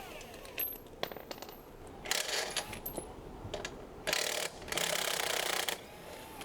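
Hand tools working on metal fasteners: ratchet-like clicking and metal parts clinking as screws are taken out of an electric scooter's rear casing, in a few short bursts with single clicks between.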